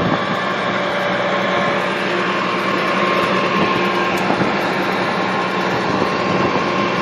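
Farmall 706 tractor engine running steadily while towing a sawmill, a constant drone with a few faint held tones over it.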